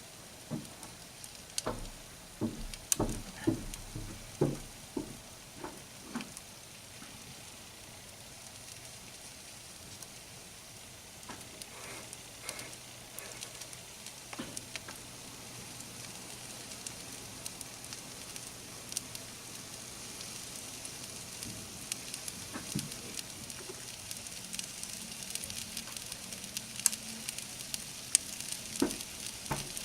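An alarm clock and its cord burning inside a microwave oven, crackling and sizzling with a steady hiss that slowly grows louder. A run of louder knocks comes in the first few seconds.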